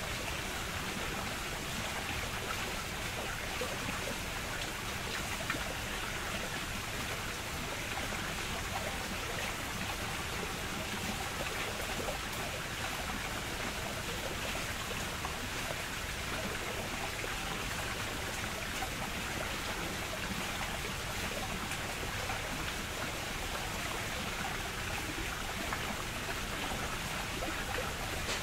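Running water rushing and splashing steadily, an even, unbroken wash of sound.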